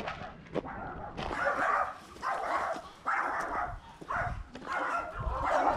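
An animal calling over and over, about once a second, starting about a second in, with footsteps on a dirt path.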